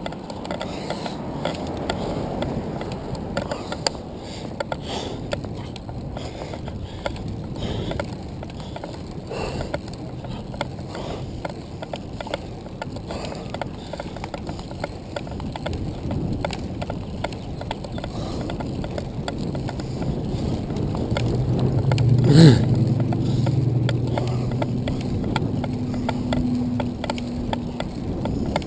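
Handcycle riding along a paved street: the chain and gears click and rattle over a steady rumble of tyres and wind. About three-quarters of the way through comes a brief loud sound sliding in pitch, followed by a steady low hum for several seconds.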